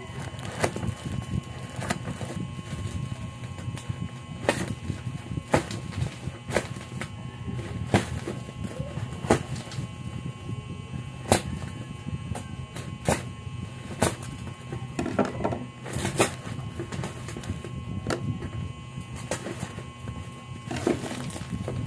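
Plastic packaging and bubble wrap crinkling and crackling as a parcel is unwrapped by hand, with sharp, irregular snaps every second or so over a steady low hum.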